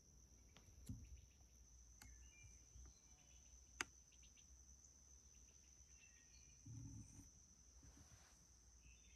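Faint, steady high-pitched chirring of crickets, with a few short bird chirps. A single sharp click about four seconds in, and a brief low rumble near seven seconds.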